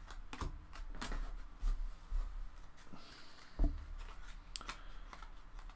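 Stiff trading cards being handled and flipped through by hand: soft sliding with scattered light taps and clicks, the loudest about three and a half seconds in.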